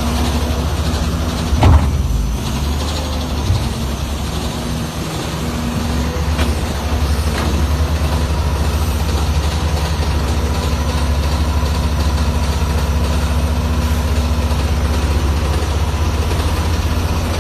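Heavy diesel engine of an earth-moving machine running steadily with a deep, even drone. A loud sharp knock comes about two seconds in, and a smaller one a couple of seconds later.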